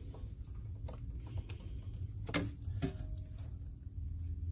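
Scattered light clicks and taps of hands handling a rubber hose end, its plastic fittings and a small oil squeeze bottle, over a steady low hum.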